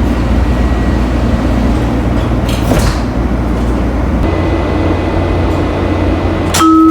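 Steady low rumble of a Washington Metrorail train car, heard from inside. Near the end a loud door chime sounds as one steady tone, signalling that the doors are opening.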